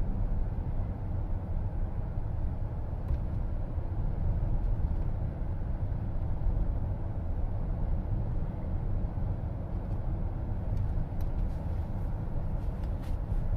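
Steady road and tyre rumble inside the cabin of a moving car, with a few faint clicks near the end.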